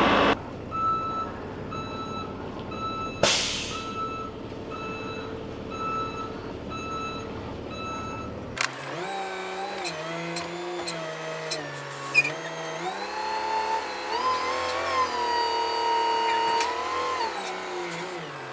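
Truck backup alarm beeping steadily, with a short air-brake hiss about three seconds in. After a cut partway through, a diesel engine runs and revs, its pitch stepping up and down.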